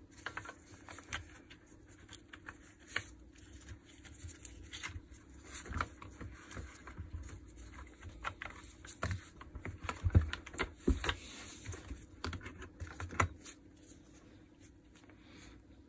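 Plastic housing parts and small pieces of a DeWalt DCH333 cordless hammer drill being handled during disassembly: scattered light clicks and taps, with a few sharper knocks around ten seconds in and again near thirteen seconds.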